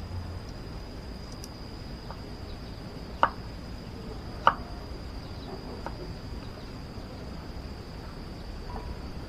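Knife chopping garlic cloves: two sharp chops about a second apart near the middle and a few fainter taps. A steady high whine runs throughout.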